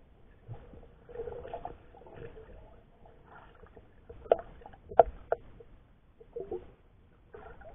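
Muffled underwater sounds picked up by a camera in a waterproof housing resting on a lakebed: soft, irregular gurgling swells with three sharp clicks about four to five and a half seconds in.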